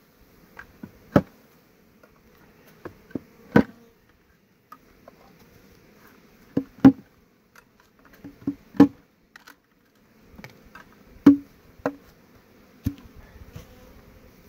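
Honeybees buzzing faintly from an opened six-frame nucleus hive. Over the buzzing come about a dozen sharp wooden knocks and clicks, in twos and threes every second or two, as the hive tool pries at the wooden hive parts and the parts are lifted and set down.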